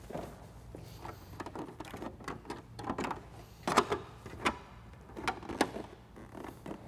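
Irregular plastic clicks and knocks as a snowmobile windshield is handled and fitted back onto the sled, the loudest about halfway through, over a faint low hum.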